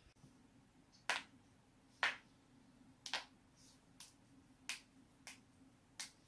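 A person's joints cracking: about seven sharp pops, roughly one a second, the first two the loudest.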